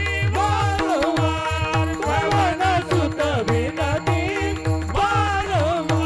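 Devotional bhajan music in a kirtan: a winding melodic line over a steady held drone, driven by fast, regular drum beats.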